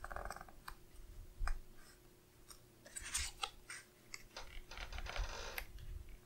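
Hands working washi tape and paper on a planner page: short rustles and light taps as the tape is pressed down, and a longer paper rustle near the end.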